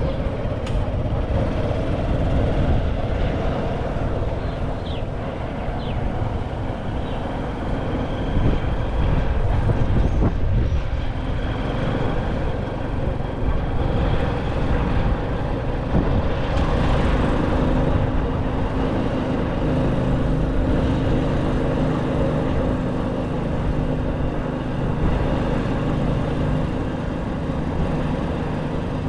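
Motorcycle engine running steadily under way, with low wind rumble on the microphone.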